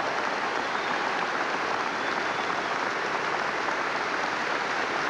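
A large crowd applauding steadily, a dense, even clatter of many hands clapping.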